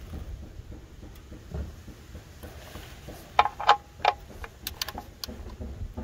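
Metal clinks of a 15 mm socket on a 3/8-inch ratchet being fitted onto a car's oil-pan drain plug, with a short ringing clink about three and a half seconds in, followed by a few sharp ratchet ticks.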